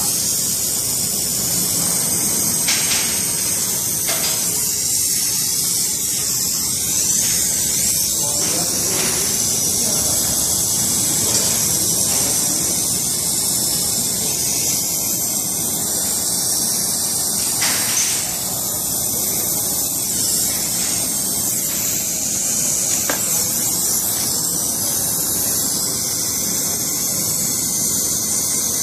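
Oxy-fuel brazing torch flame hissing steadily as it heats a brass-to-copper pipe joint for silver brazing.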